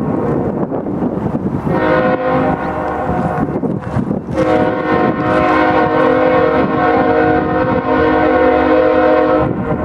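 Freight train's air horn sounding a steady chord: one blast about two seconds in, then a long blast held from about four and a half seconds until near the end, over the continuous rumble of the passing train.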